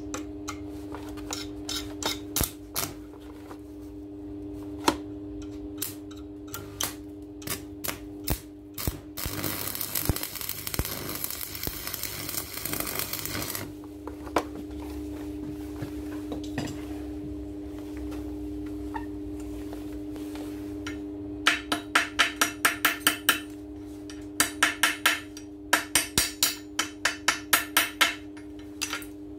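Scattered clicks and taps, then a stick-welding arc crackling and hissing for about four seconds as the joint is welded. Near the end, a spring-handled chipping hammer knocks the slag off the fresh weld in several quick runs of sharp strikes.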